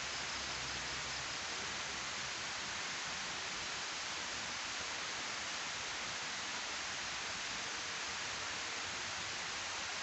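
Water rushing steadily down a sloped concrete weir spillway, a constant hiss of falling and splashing water.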